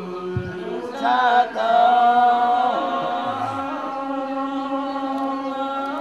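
Buddhist monks chanting together into a microphone, several voices holding long, drawn-out notes.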